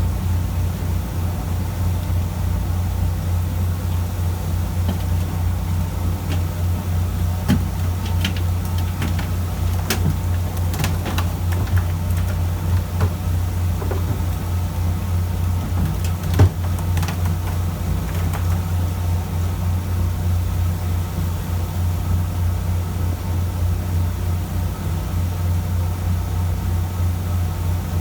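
Fishing boat's engine running steadily with a deep drone, with a few sharp knocks and clicks in the middle.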